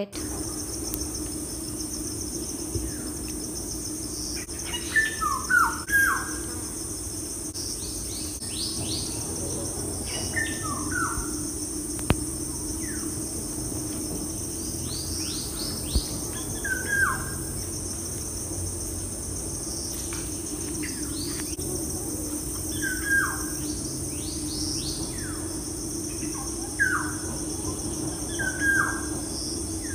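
Birds chirping in clusters of short, falling calls every few seconds over a steady high insect buzz and a steady low hum: a nature ambience.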